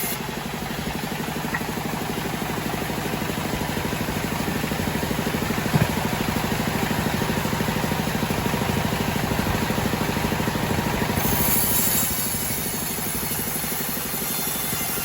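Homemade bandsaw sawmill running steadily, its engine drumming with a fast, even pulse. A single short knock comes about six seconds in, and a brighter high hiss joins from about eleven to twelve seconds in.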